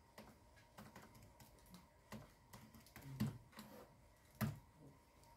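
Faint, irregular clicking of calculator keys being pressed one after another.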